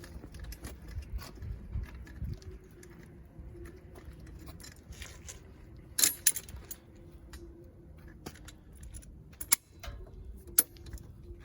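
Hand tools clinking and knocking against metal scooter parts, with a sharp clank about six seconds in and two more near the end.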